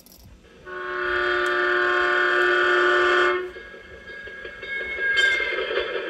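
A recorded train horn played from a CB-radio sound-effects module: a steady chord of several notes held for nearly three seconds, then cutting off sharply. About a second later a second, noisier train sound starts and grows louder.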